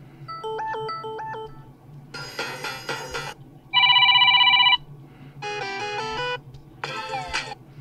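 Short previews of successive preset Samsung Galaxy F34 ringtones, each about a second long and separated by brief gaps. Most are short electronic melodies, one with a falling glide. The loudest, about four seconds in, is a steady, fast-warbling telephone-ring tone.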